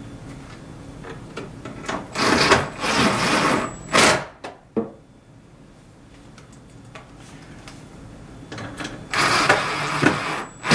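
Cordless drill-driver whirring in short runs as it drives screws into a TV's sheet-metal chassis: a few brief runs about two to four seconds in, and a longer run near the end.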